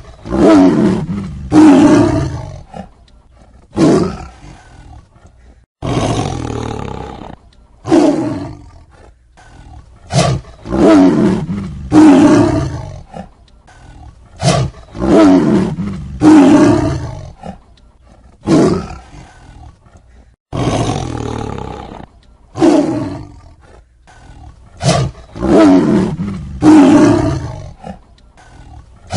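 Tiger roaring again and again in a long series of short, loud roars, one every second or two. In a couple of places a roar stops abruptly where the recording is cut.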